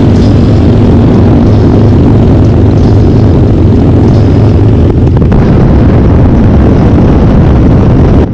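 Harley-Davidson Dyna Low Rider's Twin Cam 88 V-twin running loud and steady on the move, with wind buffeting the microphone.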